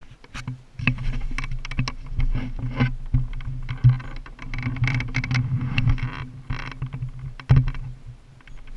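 Handling noise from an action camera being moved and repositioned on a motorcycle: a string of irregular clicks and knocks with some rustling, over a steady low hum.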